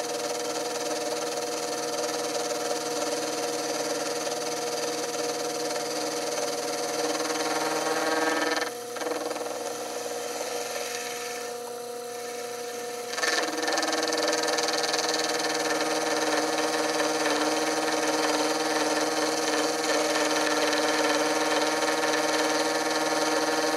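Sherline mini mill running with a dovetail cutter milling a dovetail into a steel block: a steady motor and spindle whine over the noise of the cut. The sound dips and runs quieter for a few seconds around the middle, then returns to full level.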